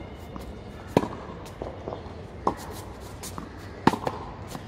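Tennis ball struck by a racket and bouncing on a hard court during a rally: sharp pops about a second and a half apart, the loudest near the end as a forehand is hit.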